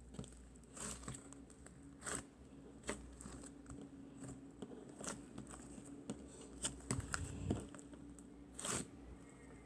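Slime being worked by hand: irregular little crackles, pops and clicks, a cluster of louder ones about seven seconds in and another near the end.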